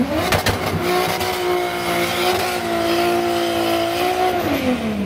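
Burnout from a turbocharged 1997 Toyota Supra's 3.4-litre stroker straight-six, its rear tyres spinning and smoking. Revs climb just after the start, with a few sharp cracks, are held steady for about three seconds over the hiss of the spinning tyres, then fall away near the end.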